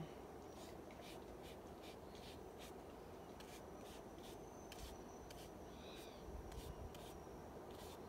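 Faint, scratchy strokes of a flat paintbrush dabbing watercolor onto sketchbook paper: short, quick strokes at an uneven pace.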